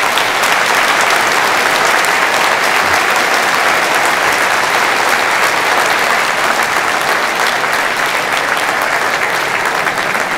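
Audience applauding steadily: dense clapping from a large crowd.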